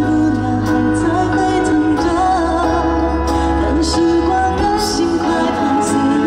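A song played live by a pop band: a wavering melody line with vibrato over a steady bass, with a cymbal stroke about once a second.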